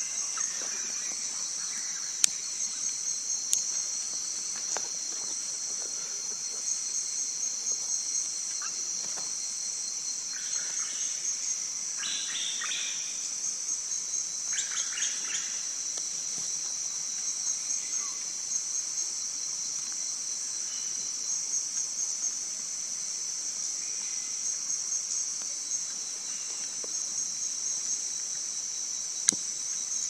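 A steady, high-pitched insect chorus with a fast pulsing trill throughout. Short bird calls come in around the middle, and a few sharp clicks sound near the start and near the end.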